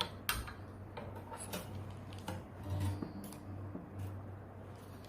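Scattered light clicks and taps of small hard parts being handled, over a steady low hum.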